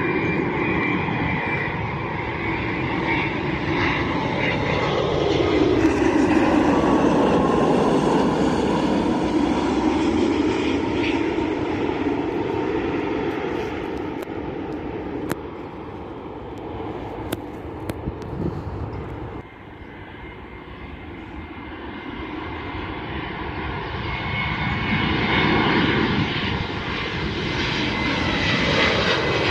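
Boeing 787 jet engines on final approach, growing louder to a peak as it passes low overhead and then easing off as it moves away, with a few sharp clicks a little over halfway through. After an abrupt cut about two-thirds of the way in, a second jet, an Airbus A321 on approach, builds up again, its noise joined by a steady high engine whine.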